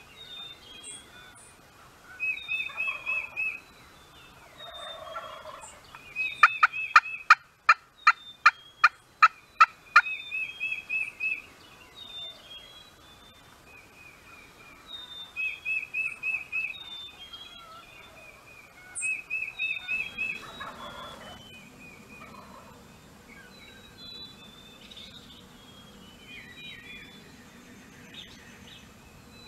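A wild turkey gobbling, with a run of about ten loud, sharp turkey yelps a few seconds in. A songbird repeats a short high trill every few seconds throughout.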